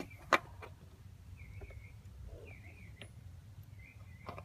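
Spin-on oil filter being threaded onto the engine by hand: one sharp click about a third of a second in, then a couple of fainter clicks, with several faint high wavering chirps.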